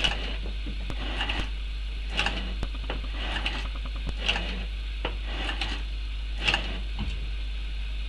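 Carburettor throttle linkage, with its accelerator cable and Lokar transmission kickdown cable, being worked open and shut with the engine off. It makes a series of short mechanical noises, roughly one a second, over a steady low hum.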